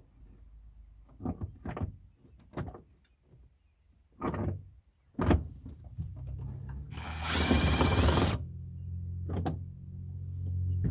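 Clicks and knocks of a screwdriver and loose plastic refrigerator parts being handled, then a loud rasping burst lasting about a second and a half. A low steady hum comes in about halfway through and keeps going.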